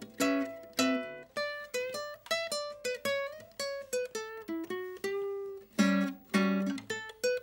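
Solo guitar playing an improvised blues: picked single-note phrases with some bent or sliding notes, then a few loud strummed chords near the end.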